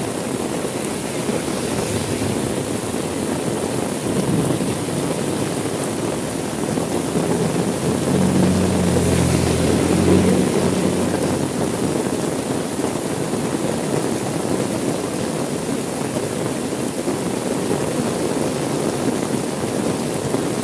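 Steady heavy rain, an even hiss, with a low rumble that swells and fades between about a third and halfway through.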